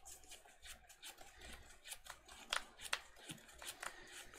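Sleeved Magic: The Gathering cards being shuffled and handled by hand: a faint run of irregular sharp clicks and soft rubbing.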